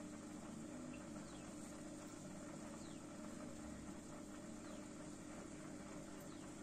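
A steady low hum, with faint short falling chirps about once a second.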